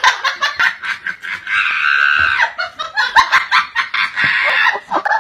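A person laughing in quick repeated bursts, with one longer high-pitched held note of laughter about two seconds in.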